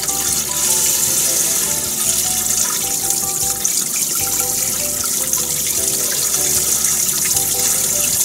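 Kitchen tap running steadily into a stainless steel bowl of water in the sink while fish trimmings are rinsed by hand, over light background music.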